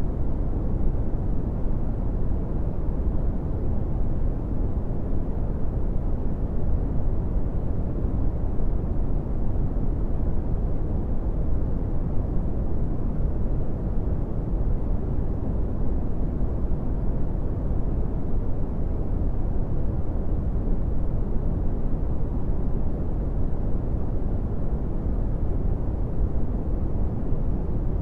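Brown noise: a steady, deep rushing hiss, loudest in the bass and fading toward the treble, unchanging throughout.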